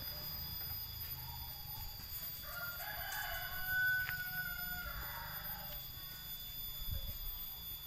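A rooster crowing once, a call of about two and a half seconds near the middle, over steady high-pitched tones.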